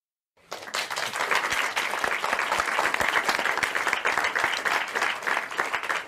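Applause, many hands clapping together, starting suddenly about half a second in and holding at an even level.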